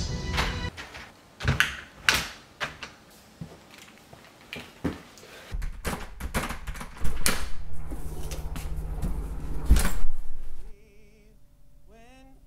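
A door opening and closing, with a string of irregular knocks and clicks, over a low rumble that cuts off suddenly near the end.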